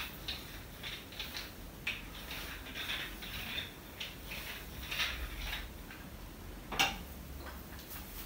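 Hands massaging a bare back: irregular rubbing, rustling and light taps of palms on skin, with one sharper click about seven seconds in.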